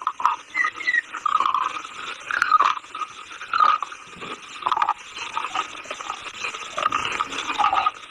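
A person biting and chewing a hard, chalky mineral such as chalk or slate pencil, close-miked, with a run of irregular crunches about once or twice a second.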